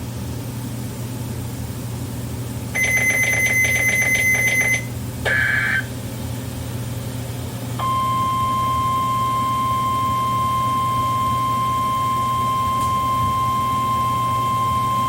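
NOAA Weather Radio broadcast over a receiver's speaker with a steady static hum. Two short bursts of buzzy digital data tones come first, then about eight seconds in the steady single-pitch 1050 Hz warning alarm tone of the Required Weekly Test begins.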